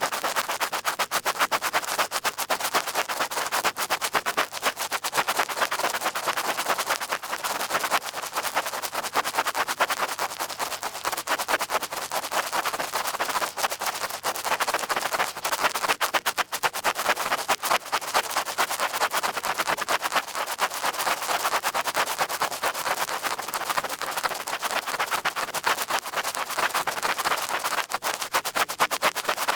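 Large ear pick scraping and scratching in an ear: a continuous, dense crackle of rapid small clicks.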